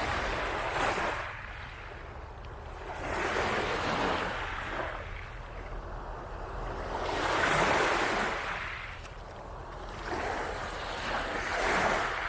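Waves washing onto a beach in four surges about four seconds apart, each swelling and then falling away.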